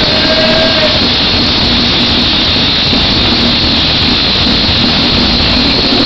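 Horror punk band and crowd at a live arena concert, heard through an overloaded phone microphone. The guitars, drums and crowd blur into one steady wash of distorted noise.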